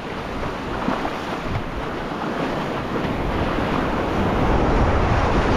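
Ocean surf washing around the shallows, with wind rumbling on the microphone; it grows a little louder about three seconds in.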